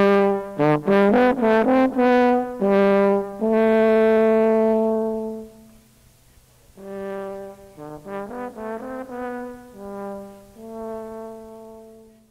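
A short brass melody played twice: a run of quick notes ending on a long held note, then the same phrase again more softly.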